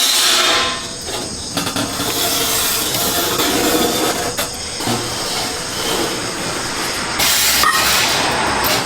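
Metalworking shop noise: a continuous rough hissing with scattered metallic clicks, and a louder hiss about seven seconds in.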